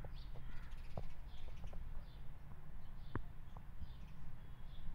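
Birds calling in short, scattered calls over a low steady rumble, with a few sharp ticks.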